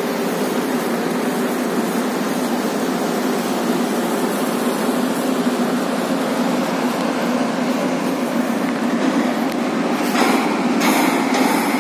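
Steady mechanical drone of machinery aboard a jack-up barge, with a brief hiss about ten seconds in.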